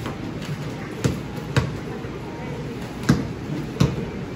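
Four short thumps at uneven intervals over a steady background murmur.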